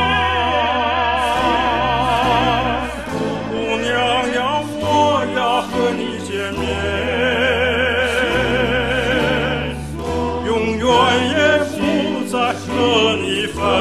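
A solo singer with strong operatic vibrato singing long held notes of a Chinese song over an instrumental accompaniment.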